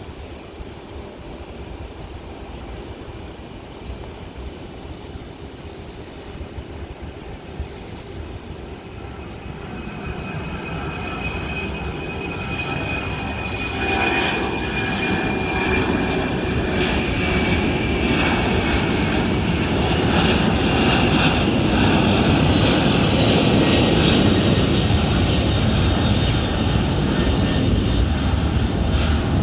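Boeing 767-200 freighter's twin turbofan engines at takeoff power as the jet climbs out, the noise growing steadily louder to a peak about three-quarters of the way through. A high engine whine runs over the rumble and slowly falls in pitch as the aircraft passes.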